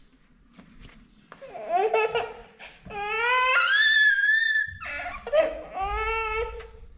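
Baby laughing in bursts, with one long, very high squeal in the middle. It starts after about a second of quiet.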